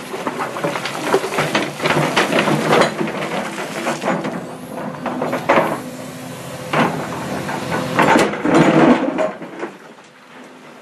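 Excavator working a load of rock and soil: rocks clattering and scraping against the steel bucket and each other, over the steady hum of the machine's engine. The clatter dies down near the end.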